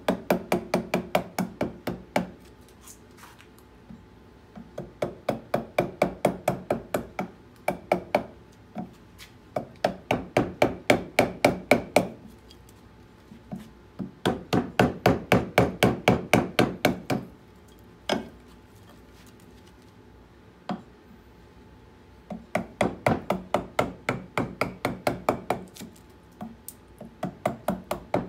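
Rapid mallet taps driving a carving gouge into a birch bowl blank, about five sharp wooden knocks a second. The taps come in runs of two to three seconds with short pauses between them, as the gouge hollows out the inside of the bowl.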